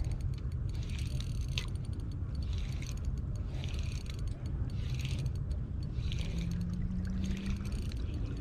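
Spinning reel being worked against a hooked, fighting fish on an ultralight rod: bursts of fine rapid clicking about every second, over a steady low rumble.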